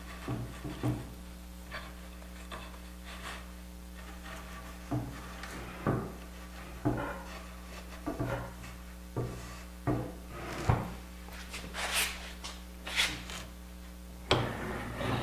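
Intermittent wooden knocks, clicks and short scrapes from pieces of wood and a doweling jig being handled and positioned on a panel, with a couple of longer scraping rubs about twelve seconds in.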